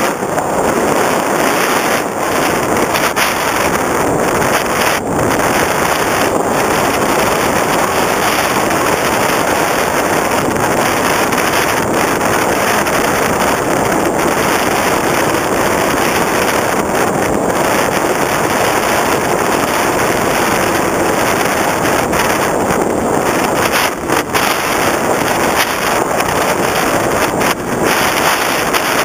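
Steady, loud rush of wind over the onboard camera of an FPV Raptor RC foam glider in flight, with a couple of brief dips in loudness near the end.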